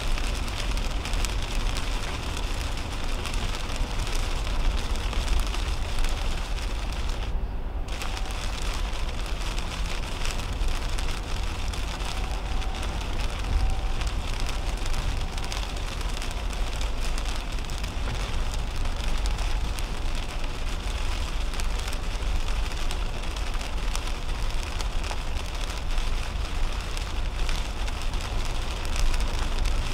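Heavy rain pattering on the windshield and body of a 2010 Toyota Camry, over the steady rumble of its tyres on a wet highway, heard from inside the car. The hiss drops away briefly about seven seconds in, then returns.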